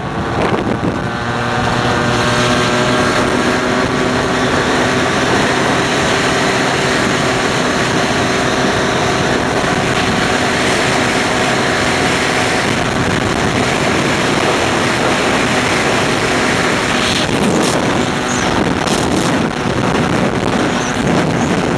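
Two-stroke scooter engine of an MBK Nitro 100 with a Leovince ZX handmade exhaust, running at a steady high pitch with wind noise on the microphone. About 17 seconds in, the steady note gives way to a rougher, noisier sound.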